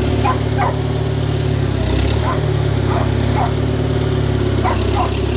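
International loader tractor's engine running steadily under lifting work, with a dog barking repeatedly over it.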